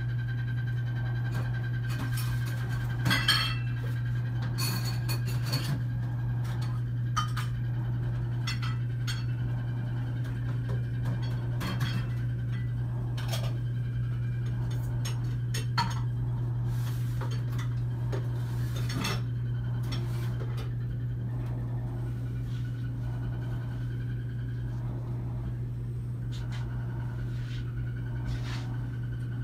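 Scattered light clinks and clicks of dishes and cutlery, most of them in the first twenty seconds, over a steady low hum.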